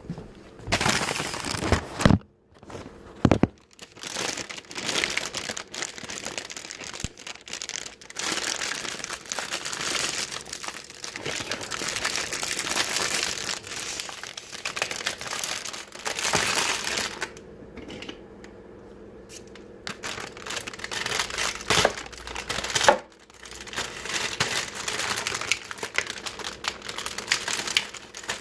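Continuous crinkling and crackling of something being handled close up, with a few sharper knocks and a quieter spell about two-thirds of the way through.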